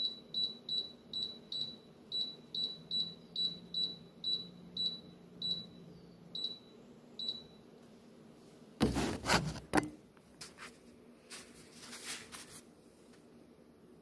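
Digital air fryer's touch control panel beeping once per press as its setting is stepped up: about fifteen short high beeps, two to three a second, slowing and stopping about halfway. About nine seconds in comes a loud burst of rustling and handling noise, with fainter rustles after it.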